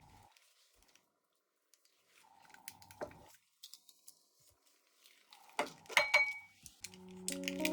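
Scattered light clinks and knocks of kitchenware, a cluster of them a little after halfway with one short ring. Music starts near the end.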